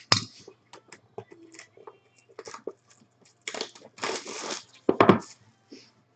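Plastic shrink wrap being torn and crinkled off a sealed trading-card box, in irregular crackles and rustles. A longer tearing rustle comes about three and a half seconds in, and a sharp loud crackle about five seconds in.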